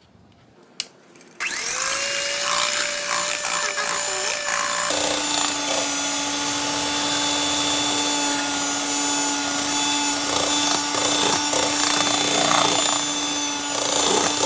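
Electric hand mixer switched on about a second and a half in, its motor whining steadily as the beaters whisk egg whites in a stainless steel bowl until they froth. About five seconds in, the whine drops to a lower pitch and then holds steady.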